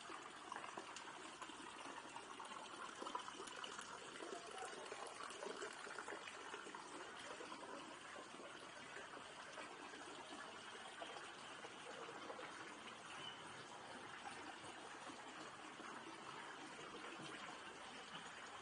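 Faint, steady trickle of water from the garden ponds.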